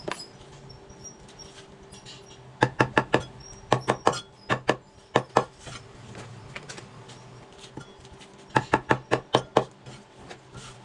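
A knife chopping goose organs on a cutting board. It comes in quick runs of sharp strokes, a burst of about five, then a few single chops, then about seven more near the end, over a steady low hum.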